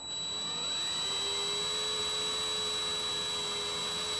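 DeWalt cordless drill boring a small step-up hole into a plastic car bumper: the motor spins up at the start, its whine rising in pitch over about the first second, then runs as a steady high whine.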